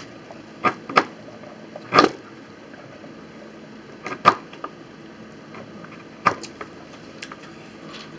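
A metal fork clicking and tapping against a plastic food tray while eating: scattered sharp clicks, several of them in close pairs.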